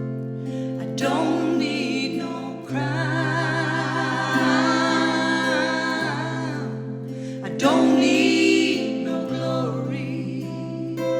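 Women's voices singing held, wordless harmony notes with vibrato in a soul-gospel style, over steady guitar chords that change every few seconds.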